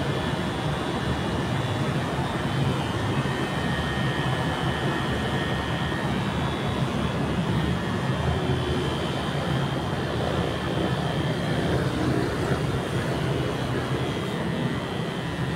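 Cordless electric hair clipper running steadily with a low motor buzz as it is pushed up through short hair.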